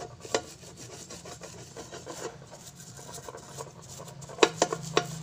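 A frying pan being shifted on a hard surface: a knock, then scraping as its metal base rubs along, then a quick run of knocks and clatter near the end.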